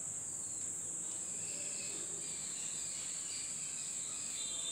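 Steady high-pitched chirring of crickets, with faint scratching of chalk on a blackboard.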